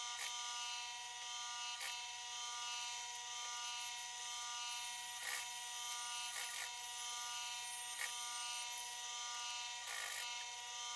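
Industrial Singer sewing machine's electric motor humming steadily while a seam is sewn, with occasional short clicks.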